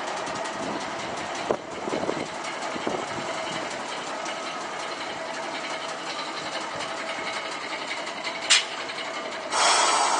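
Streetcar rolling slowly past at a tram stop, with steady running noise and a few clicks over the first few seconds. A brief sharp sound comes near the end, then a sudden loud rush of noise just before the end.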